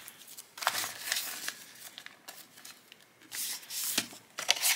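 Paper banknotes and a clear plastic binder pocket rustling and crinkling as a note is put into the pocket, in short spells about a second in and again from about three and a half seconds, with a few light clicks.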